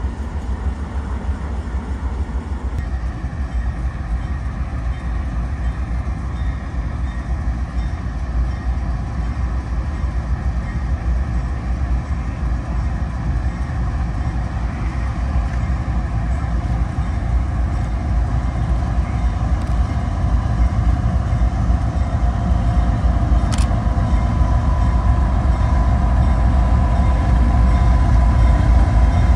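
Diesel locomotives running with a steady low rumble that grows louder as a locomotive-hauled train approaches and draws close. About three-quarters of the way through there is a sharp click, then a steady high whine.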